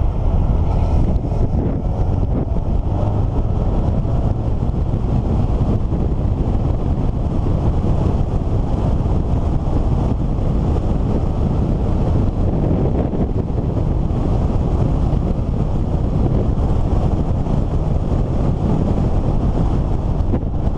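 Steady wind noise buffeting the microphone over the low rumble of a vehicle on the move.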